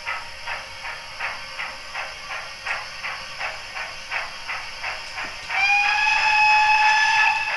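Sound decoder of a Hornby 14XX model tank locomotive playing steam exhaust chuffs at about three beats a second through the model's small onboard speaker. Near the end a steady steam whistle sounds for about two seconds, louder than the chuffing.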